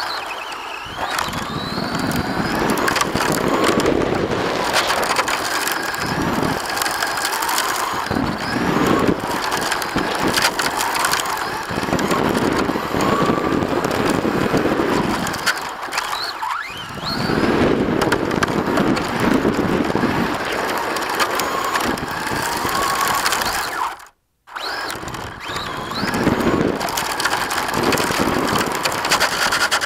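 Onboard sound of a Traxxas Fiesta ST Rally RC car driving hard on rough asphalt: a constant gritty crunch and rattle from the tyres and chassis, with a thin electric motor whine rising and falling as the throttle comes on and off. The sound cuts out briefly about two-thirds of the way through.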